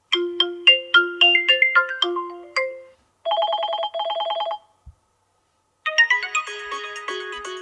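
Built-in ringtones of a Vivo Y33s phone playing one after another. First comes a quick melody of short, fading notes for about three seconds. Then a rapid trilling ring lasts about a second and a half, and after a pause of about a second a third, busier melody begins.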